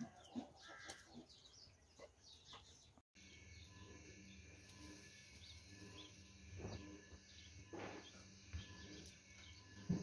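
Faint bird chirps over quiet background noise. About three seconds in, the sound cuts to a steady low hum with a few soft thumps and more faint chirps.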